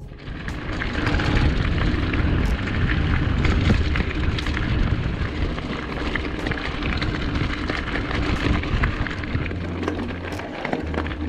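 Riding a mountain bike on a gravel road: wind buffeting the helmet-camera microphone as a heavy rumble, with tyre crunch and rattling clicks from the bike.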